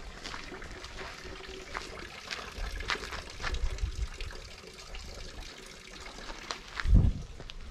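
Footsteps crunching on a path of gravel and dry fallen leaves at a steady walking pace, with a single low thump about seven seconds in.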